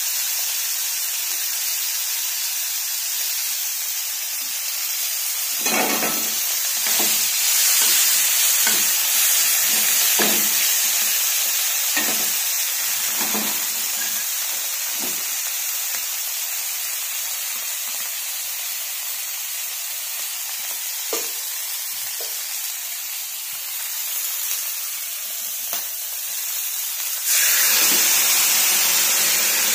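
Chopped tomatoes frying in hot oil in a nonstick pan: a steady sizzle, with a spatula scraping and tapping the pan as they are stirred from about six seconds in. Near the end cut vegetables are tipped into the pan and the sizzle suddenly gets much louder.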